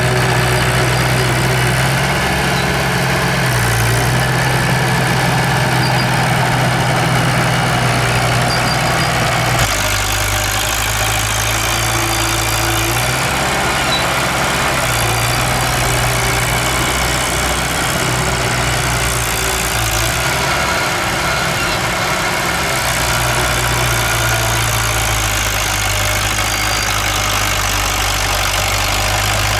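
Diesel engine of heavy earthmoving machinery running steadily, its low hum shifting in pitch a few times.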